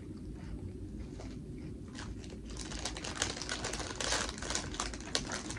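Bubble wrap and plastic packaging being handled, crinkling and crackling irregularly; it starts about two and a half seconds in and grows busier.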